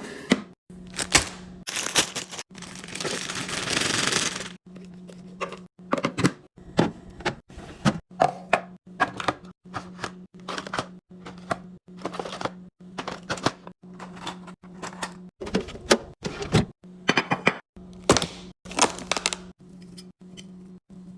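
Fridge restocking: plastic containers, bottles and packages being handled and set down in a quick run of clicks and knocks, with a few seconds of rushing, rustling noise about three seconds in and a steady low hum underneath.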